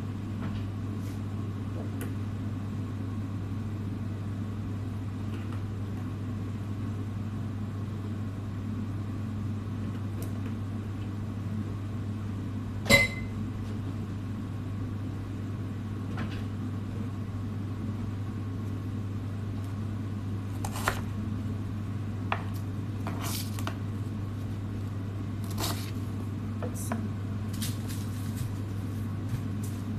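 A steady low kitchen hum, with scattered clicks and knocks of cookware and utensils; one sharp metallic clink with a brief ring about halfway through is the loudest sound, and the knocks come more often near the end.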